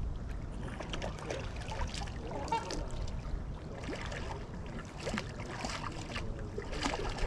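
Waterfowl on the river water making many quick, irregular small splashes and trickles.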